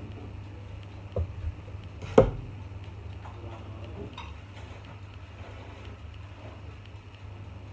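A few clanks and knocks as a disposable aluminium baking tray is handled onto the metal rack of a toaster oven with its door open, the loudest a single sharp clank about two seconds in, over a steady low hum.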